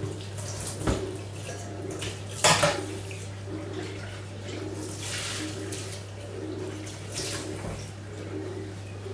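Kitchen handling sounds from dishes and water: knocks and clatter with water sloshing, the loudest knock about two and a half seconds in, over a steady low hum.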